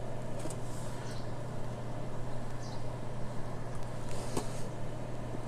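Quiet room tone with a steady low hum and a few faint, scattered clicks as a laptop is operated.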